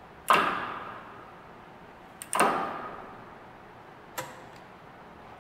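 Two sharp metallic knocks about two seconds apart, each ringing out for about a second, then a lighter click near the end, over a faint steady hum.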